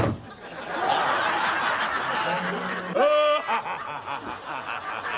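A sudden sharp thump, then audience laughter, with a loud held vocal cry about three seconds in.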